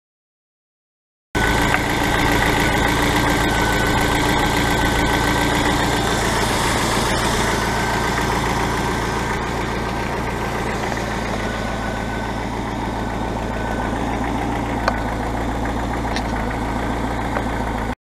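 1993 Jeep Wrangler YJ engine idling steadily, starting abruptly about a second in.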